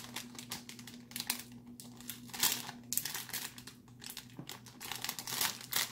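Clear plastic produce bag of grapes crinkling as it is handled and turned in the hands: a run of irregular crackles.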